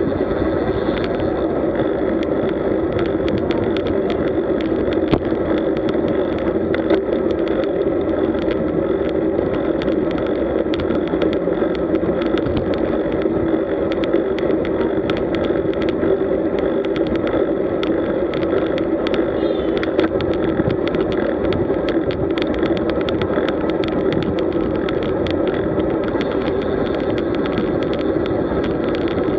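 Steady rush of wind and tyre noise from road bikes riding at speed in a group, picked up by a camera on the bike, with many small ticks and knocks from road vibration.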